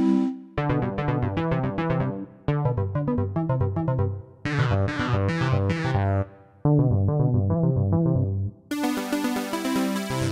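Kurzweil ME-1 Micro Ensemble sound module (PC2 engine) auditioning presets: a short phrase of quick keyboard notes plays on one patch, breaks off, and starts again on the next. The patch changes about every two seconds, five times in all, each with a different synth-type tone.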